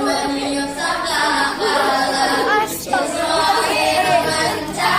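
A young girl singing a religious children's song, holding some notes long.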